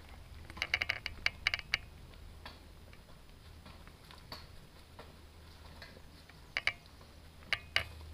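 Sharp clicks and taps of a hiker stepping across rocks: a quick cluster about a second in, a few single ones, and a few more near the end.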